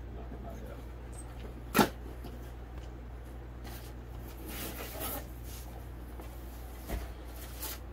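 A small cardboard box being opened and handled: rustling and scraping of the carton and its flaps, with one sharp click about two seconds in and a dull knock near the end, over a low steady hum.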